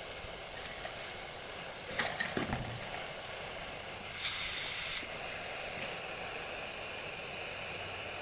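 Oxy-fuel cutting torch burning with a steady hiss against a steel shaft. A few crackles come about two seconds in, and about four seconds in a louder, higher rush of hiss lasts just under a second.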